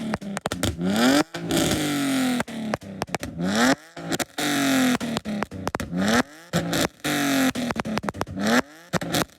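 BMW E46 328i's stage 2 tuned 2.8-litre straight-six engine revved in quick throttle blips, about six times, its pitch climbing fast and falling back each time.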